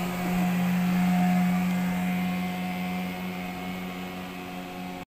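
Outboard motor of a small boat running at speed as it passes by, a steady engine drone that is loudest about a second in and fades as the boat moves away.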